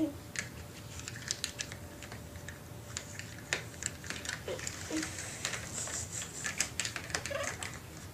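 Plastic toy figures tapping and clicking against a plastic playset as they are handled and moved, a run of light, irregular clicks.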